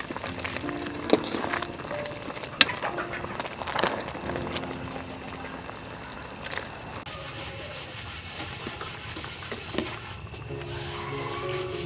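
A metal ladle stirring a pot of bubbling soup, with a few sharp clinks of the ladle against the pot in the first four seconds, over soft background music.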